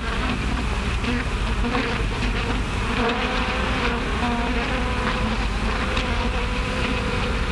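Bees buzzing in a dense, steady swarm, several wavering pitches overlapping at once, heard on an early sound-film track.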